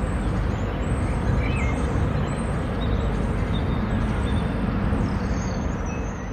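Steady outdoor rumble with faint, short bird chirps over it, fading away at the end.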